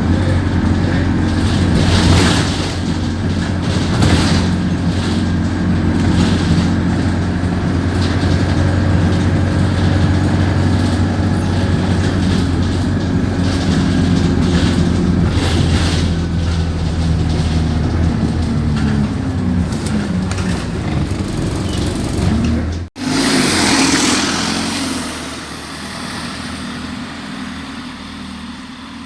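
Diesel engine of an Alexander Dennis Enviro200 single-deck bus running with a steady, even throb, its pitch shifting slightly near the end. About three-quarters through the sound breaks off sharply, followed by a burst of air hiss and quieter running that fades.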